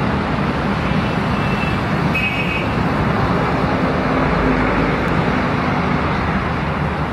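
Steady low rumble of a diesel-electric locomotive approaching along the tracks, mixed with city traffic noise, with two brief high tones about 1.5 and 2 seconds in.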